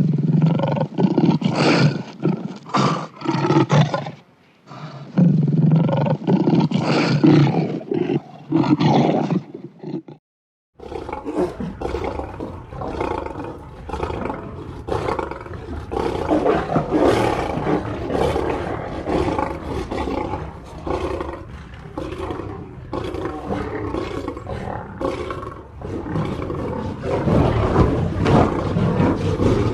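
Lions roaring in repeated rough bouts. About ten seconds in there is a brief silence, then roaring carries on with a denser, noisier sound to the end.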